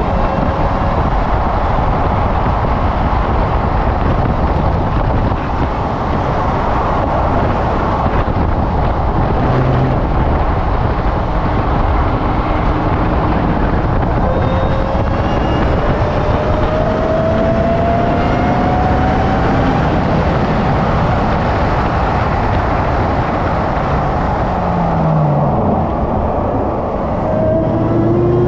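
Car engine at speed on a race track, buried under heavy wind and road noise. About midway the engine note rises steadily as the car accelerates, and near the end it falls as the car slows for a corner.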